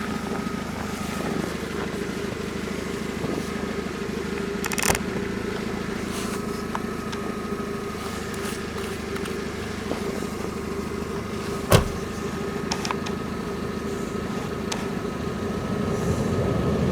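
Car engine idling steadily, with a couple of sharp knocks or clicks about five and twelve seconds in.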